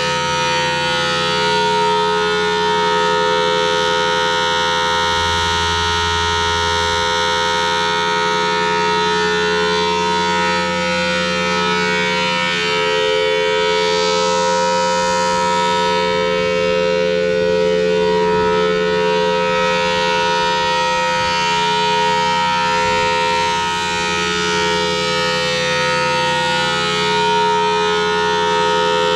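Federal Signal Thunderbolt 1003 tornado siren, a rotating mechanical siren, sounding a steady tone without breaks.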